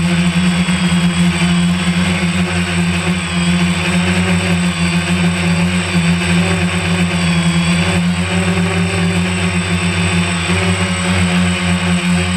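DJI Phantom 1 quadcopter's motors and propellers humming steadily in flight, with a slight wavering in pitch as the motors adjust.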